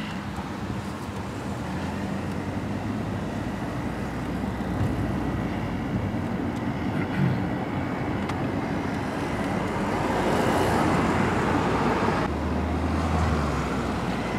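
Steady road and traffic noise of a moving car, heard from inside the cabin as it drives along a main road. The noise grows a little louder about ten seconds in.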